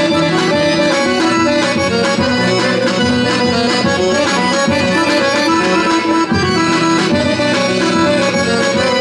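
Accordion playing a Bulgarian folk tune, with steady strokes of a tapan drum keeping the beat.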